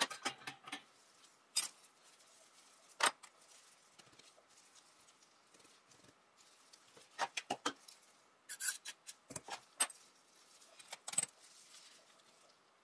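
Small oiled steel parts of a Stgw. 57 trigger group clinking and tapping as they are handled and set down in a wire mesh basket. The clicks come singly a second or more apart, with a quick run of clinks about seven seconds in and more near nine seconds.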